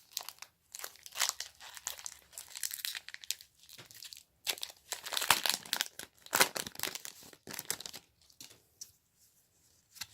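Foil Pokémon booster pack wrapper being torn open and crinkled: irregular bursts of crackling rustle, loudest in the middle and dying down near the end.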